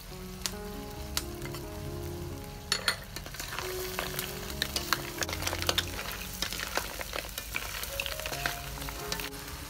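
Snails sizzling in a wok as they are stirred with a wooden spatula, the shells clicking against the pan and each other; the sizzle and clicking get busier and louder about three seconds in. Background music with held notes plays underneath.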